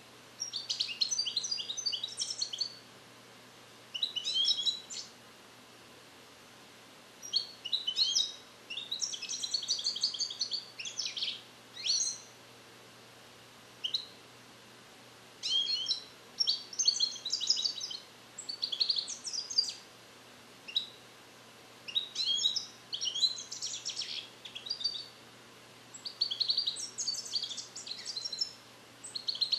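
A song-trained European goldfinch singing Neapolitan 'passata' phrases: short runs of rapid, high twittering notes broken by pauses of a second or two. The learned passages are not yet complete.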